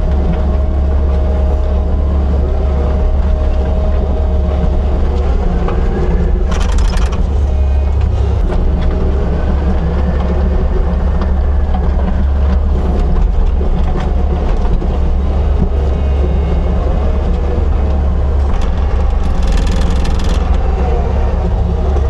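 Heavy earth-moving machine's engine running steadily under load during dirt work, with two brief harsh noises about seven seconds in and near the end.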